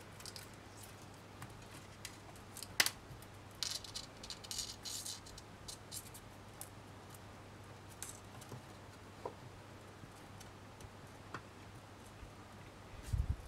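Faint scattered ticks and scratches of thin metal wire being wrapped by hand around a wire frame. There is a clearer click about three seconds in, a soft thump near the end, and a low steady hum underneath.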